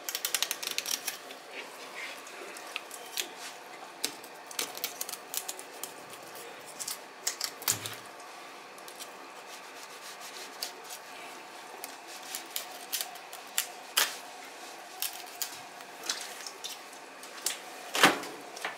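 Knife cutting through a red sea bream on a plastic cutting board: irregular sharp clicks and scrapes as the blade works along the fish, with a louder knock near the end.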